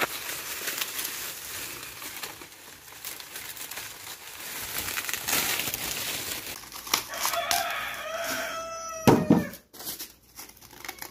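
Dry corn stalks and leaves crackling and rustling as someone pushes through a dry cornfield. About seven seconds in a rooster crows once, and a short loud bump follows about nine seconds in.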